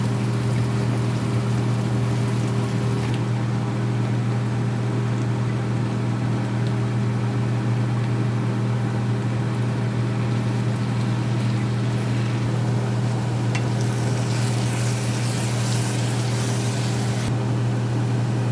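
Steady low electric hum of a kitchen fan motor, with a stretch of hiss about three-quarters of the way through.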